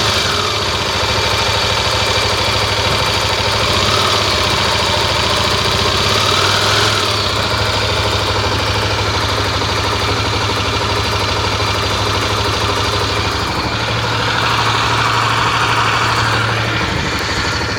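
Tornado's engine idling hot, with a few slight swells in its sound; this is the hot-engine noise being shown.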